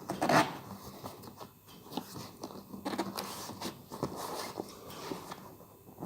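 Irregular crinkling, scraping and light tapping as a dry suit and its new neck seal are handled and worked into place, loudest about half a second in.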